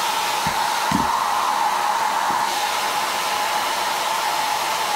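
Small handheld hair dryer running steadily: a constant rush of air with a steady motor whine.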